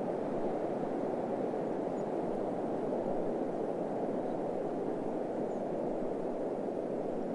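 Steady, low rushing noise of a desert wind ambience, even and without gusts.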